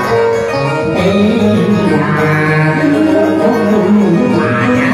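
A man and a woman singing a Vietnamese tân cổ duet into microphones over amplified live band accompaniment.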